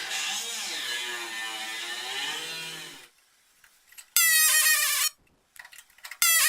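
A rotary tool with a small cutting disc cutting into car body sheet metal for about three seconds, its whine sagging and recovering in pitch under load. After a short pause it gives two short bursts of a steady, high-pitched whine, about four and six seconds in.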